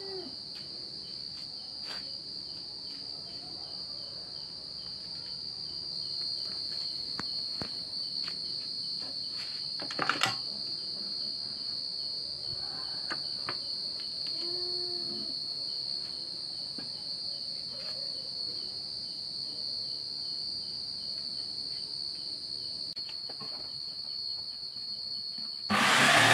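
A cricket's steady high trill. A jigsaw starts up loudly just before the end.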